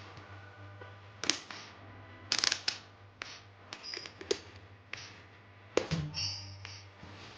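Scattered clicks and knocks of tools and metal parts being handled on a workbench, over a low steady hum.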